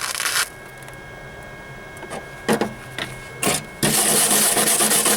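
Flux-core wire-feed welder arc crackling in three short bursts, then a steady run of crackle from about four seconds in, as the weld puddle fills a burn-through in the thin floor pan sheet.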